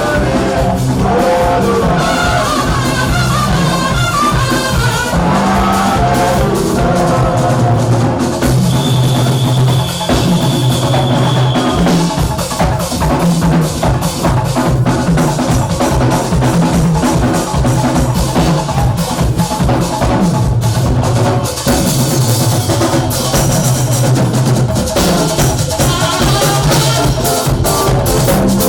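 Loud music with a drum kit and a strong bass line keeping a steady beat.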